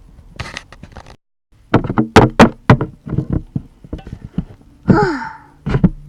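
A run of sharp knocks and taps, densest about two seconds in, after a brief dropout to silence. Near the end a short squeal falls in pitch, followed by one more knock.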